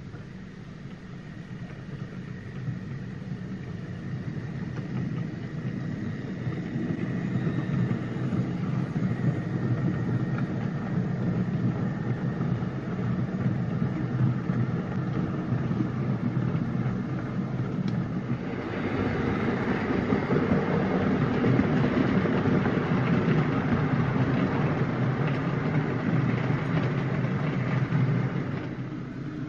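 OO gauge model steam locomotive and its luggage vans running along the track: a steady rolling rumble that grows louder about eighteen seconds in and drops back near the end.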